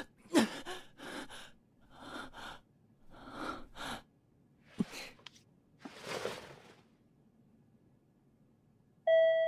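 A frightened young man's ragged, panicked gasping breaths, short gasps and whimpers one after another for about seven seconds, then they stop. Near the end a doorbell chime sounds.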